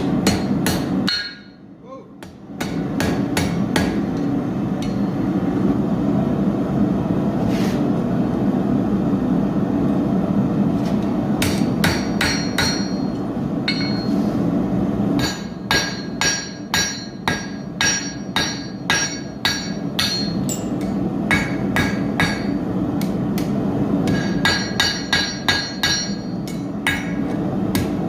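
Blacksmith's hammer striking steel on an anvil, in runs of quick blows at about two a second, each with a ringing tone from the anvil. A steady low roar runs underneath, briefly dropping away near the start.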